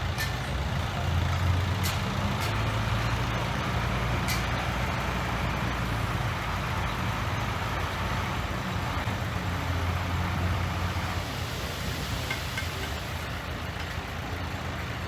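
Heavy diesel engine of a construction machine running steadily with a low drone, swelling a little about a second in and again around ten seconds, with a few faint clicks in the first few seconds.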